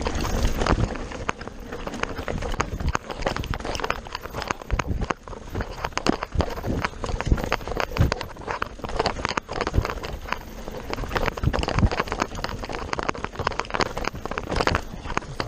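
Mountain bike running fast down a rough dirt trail: a continuous, irregular clatter of tyres over dirt and stones and the bike's parts rattling, full of sharp knocks, over a low rumble of wind on the camera microphone.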